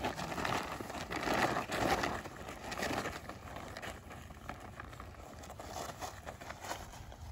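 Plastic tarp crinkling and rustling as puppies tug at it and scramble across it, loudest in the first three seconds, then lighter with scattered small crackles.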